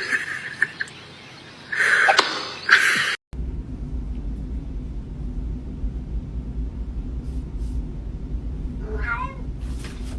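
A cat meowing, two or three short calls, then after a sudden cut a steady low hum with one short wavering cry near the end.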